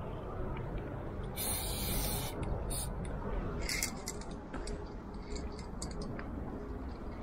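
Aerosol spray-paint can hissing in bursts: one longer spray about a second and a half in, then several short spurts, over a steady low rumble.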